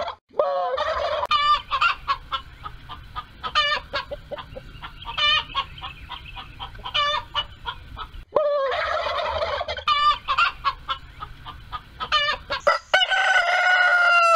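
Turkey gobbling and chicken clucking: warbling gobbles at the start and again past the middle, a string of short clucks between, and a long held call near the end.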